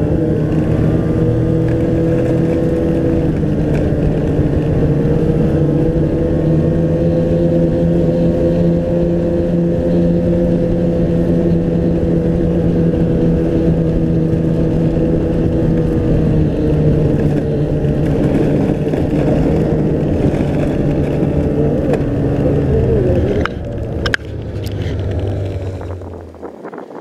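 Ski-Doo snowmobile engine running at a steady trail-cruising pace under the rider, its pitch holding almost level with small rises and dips. Near the end the sound falters with a couple of sharp clicks and then cuts off.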